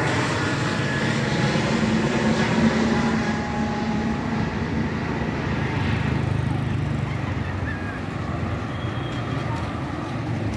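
Airbus A320neo's twin turbofan engines climbing out after takeoff: a low, steady jet rumble that slowly fades as the airliner recedes into the clouds.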